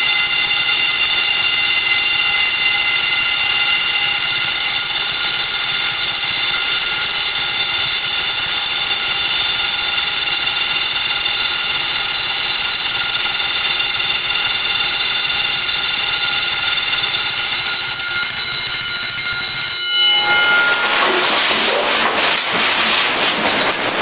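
Several wind-up mechanical alarm bells (Vintage Vanguard and Emdeko gongs) ringing together while submerged in water, a dense, continuous ring of many steady high tones. About twenty seconds in most of the tones stop and a rougher, noisier ringing is left, which cuts off suddenly at the end.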